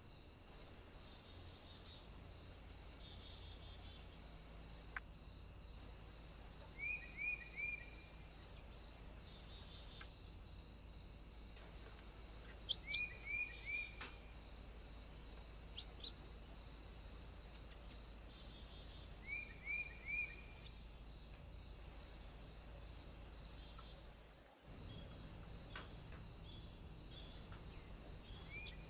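A small bird calling a quick run of three descending notes, repeated three times about six seconds apart, over a steady high hiss. A few faint clicks.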